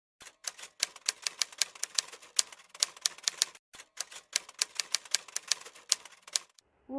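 Typewriter keys clacking rapidly, about six or seven strokes a second, in two runs with a short break about three and a half seconds in.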